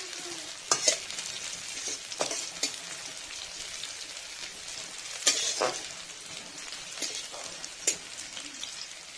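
Sliced onions and dried red chillies sizzling in oil in a metal wok, stirred with a metal spatula that scrapes and knocks against the pan every second or two. The loudest scrape comes a little past halfway.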